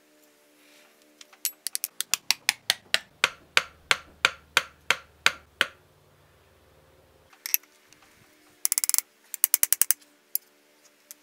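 About twenty quick hammer blows on steel over some four seconds, driving the red-hot tang of an antique drawknife down into its wooden handle. After a pause come a single knock and two quick flurries of metallic clinks near the end. Background music plays throughout.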